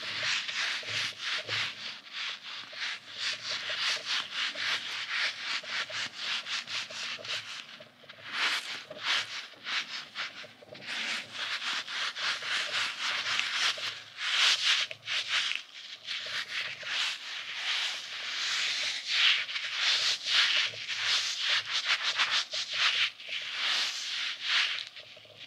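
Close-miked hands squeezing, kneading and stretching a soft goose-shaped squeeze toy from Daiso: a dense run of squishy rubbing strokes, with a short lull about eight seconds in.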